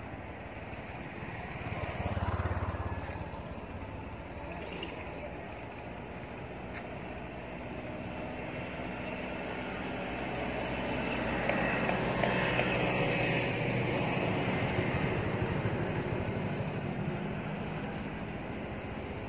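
A motor vehicle's engine hum over steady outdoor background noise, swelling louder about halfway through and holding for several seconds.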